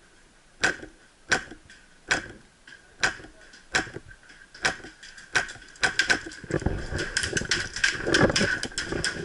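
Airsoft gunfire: single sharp shots from a high-pressure-air (PolarStar-engined) F2000 rifle fired in semi-auto, about one every 0.7 seconds, turning into a faster flurry of shots mixed with rustling from about six seconds in.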